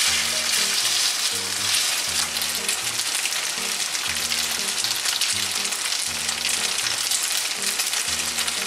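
Slices of pork leg sizzling steadily in sesame oil in a frying pan, spread flat to brown. Background music with a low repeating bass pattern runs underneath.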